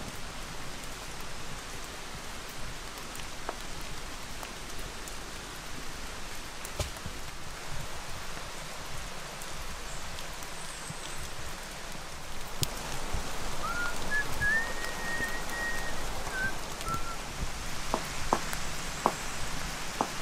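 Steady rain falling on wet ground and stone, with scattered drops striking close by. About two-thirds of the way through, a brief high whistle rises and holds for a couple of seconds.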